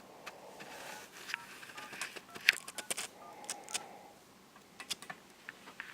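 Telephone keypad tones as a number is dialed: a string of short beeps mixed with small clicks.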